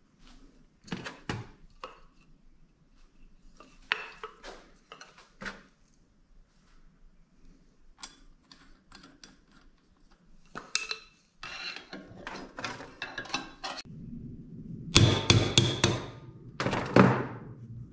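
Hammer blows and metal-on-metal clinks as the flywheel of a Predator 212 engine is knocked loose. Scattered light taps give way to a quick run of knocks, and the heaviest ringing strikes come near the end.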